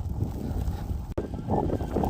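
Blizzard wind buffeting the microphone in uneven gusts, with a short click a little past halfway.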